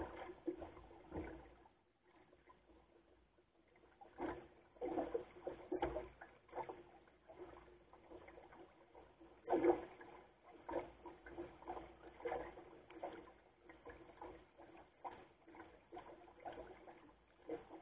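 Lake water slapping and gurgling against the hull of a small sailing dinghy under way, in irregular splashes with louder bursts about four to six seconds in and again near ten seconds, over a faint steady hum.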